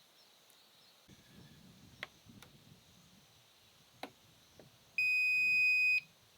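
A few light clicks and knocks, then a single electronic beep, one steady high tone held for about a second.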